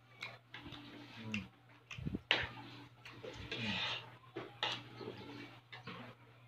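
Close-up eating sounds: chewing and mouth noises in short bursts, with scattered light clicks of a spoon and fork against plastic containers and food being picked apart by hand.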